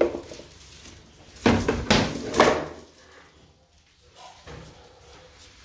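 Three sharp knocks and clatters in quick succession, about one and a half to two and a half seconds in, from a refrigerator's doors and drawers being opened and handled.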